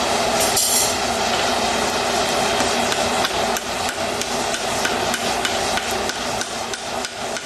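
Forge fire with its blower running steadily, under a fast run of light metallic taps and clicks. The taps grow more distinct in the second half, as the horseshoe and toe bar come up to welding heat in the fire.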